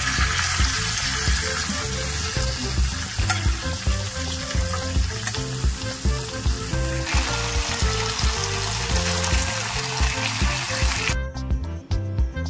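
Mutton frying on a hot tawa: a steady sizzle that cuts off suddenly near the end, with background music underneath.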